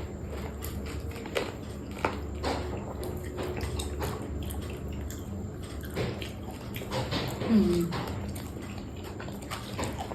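Close, wet chewing and mouth smacking of a person eating cooked shrimp, with many small irregular clicks. A brief hum falls in pitch about seven and a half seconds in.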